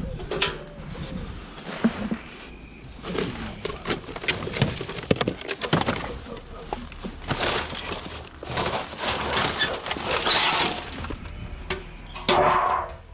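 Scrap and junk being handled and loaded: a string of knocks and crashes of hard objects hitting each other, with a loud, dense crash near the end.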